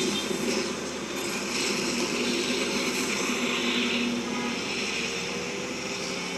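A steady, dense rumbling drone with a few low hums running through it, like a large engine or machine running continuously.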